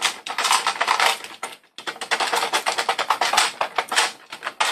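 .22 LR cartridges rattling inside the clear plastic hopper of a McFadden Lightnin' Grip magazine loader as it is shaken by hand: a rapid, uneven run of clicks with a short break about a second and a half in. The shaking settles the rounds into the loader's feed channel for loading the magazine.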